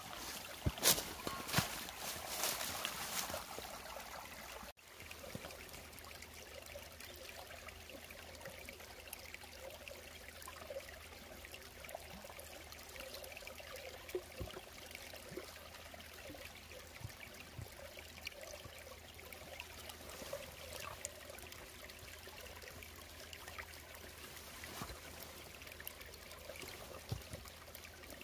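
Water trickling, a steady running-water hiss with scattered small clicks. The first four seconds or so are louder with a few sharp knocks, then the sound cuts abruptly to a quieter, even trickle.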